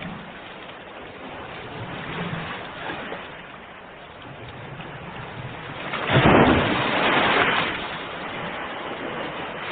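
Ocean waves washing on the shore, one wave breaking loudly about six seconds in and washing out over the next two seconds.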